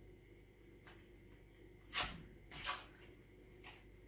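Block of Philadelphia cream cheese being unwrapped by hand: a few short crinkles and rustles of its packaging, the loudest about two seconds in.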